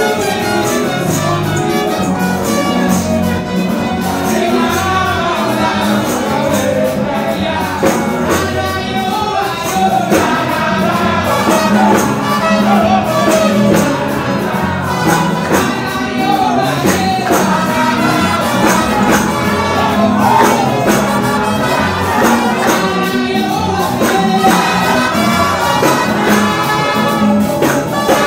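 Live gospel music: women singing together into microphones over keyboard and electric bass guitar, with a steady beat.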